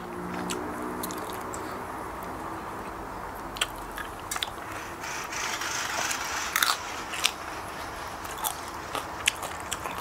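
A person chewing and biting food close to the microphone, with scattered crisp clicks of mouth sounds and crunching.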